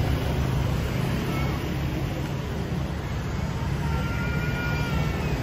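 Street ambience: a steady rumble of passing road traffic with a continuous background hiss.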